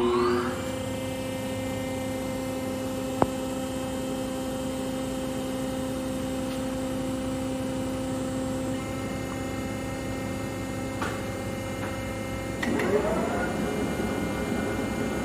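The big Monarch Model 80 engine lathe runs with a steady, multi-tone electrical hum from its 50-horsepower main motor while the spindle is stopped, with one sharp click about three seconds in. Near the end the spindle engages and the 28-inch four-jaw chuck starts turning, and a louder, rougher running sound from the headstock joins the hum.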